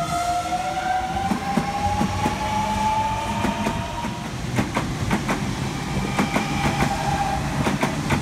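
Double-deck electric suburban train (a Sydney Trains Millennium M-set) pulling out. Its traction motors give a whine that climbs slowly in pitch as it speeds up, and from about halfway in the wheels click steadily over the rail joints as the carriages roll past.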